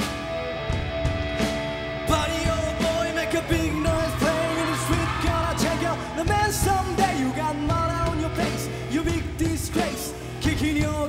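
Live rock band playing, with drums and guitar; a lead vocal comes in about two seconds in and carries the melody.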